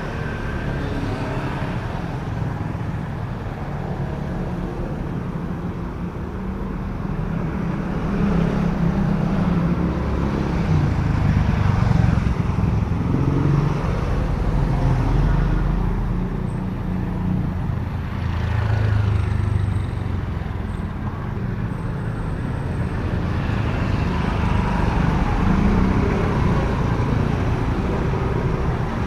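Street traffic: motor scooters and cars passing close by. Their engine rumble swells and fades several times.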